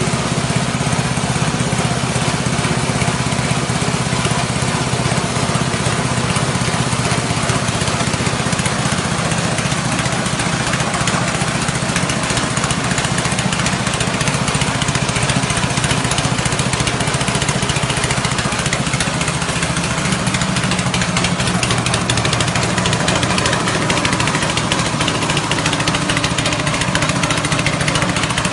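Rice-husk grinding machine running steadily, driven by its 6.5 HP petrol engine: a constant engine note under a dense, even noise from the mill.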